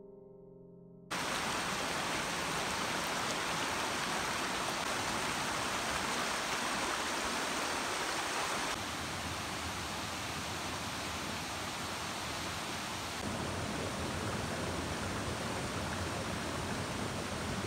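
Steady rush of flowing water that cuts in suddenly about a second in and holds on, shifting slightly in level twice.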